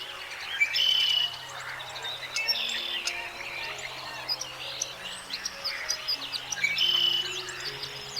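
Birds chirping and singing, many short calls overlapping, with louder trilled phrases about a second in and again near the end. Soft, steady music tones sit underneath.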